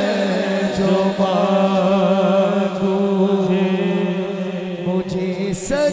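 Male voices in an unaccompanied naat recitation hold a long wordless note as a steady drone, with a voice wavering in melody above it. The note breaks off briefly just before the end.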